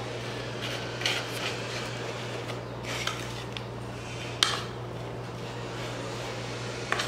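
Metal spoon scraping and clinking on a plate while stirring a dry, crumbly gujiya stuffing of mawa, semolina and sugar, with a few sharper clinks, the loudest about four and a half seconds in. A steady low hum runs underneath.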